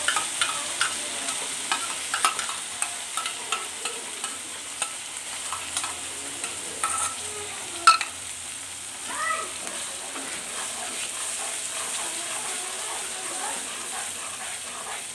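Ground spice paste sizzling in hot mustard oil in a non-stick kadai, with a steel spatula clicking and scraping against the pan as it is stirred. The clicks come thick in the first half, with one sharp knock about eight seconds in.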